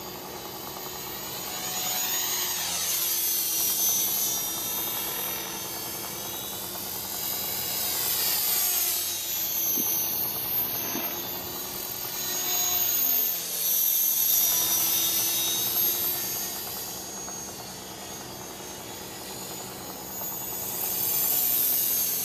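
Align T-Rex 450 Pro electric RC helicopter in flight, its motor and rotor whine rising and falling in pitch as it sweeps past, growing louder and fainter several times.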